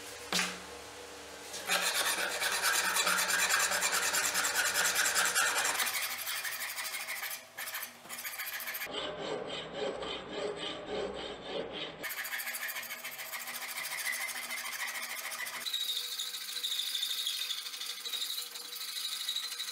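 Flat hand file rasping in repeated strokes along the edge of a forged stainless-steel kunai blade. The tone of the rasping changes abruptly a few times.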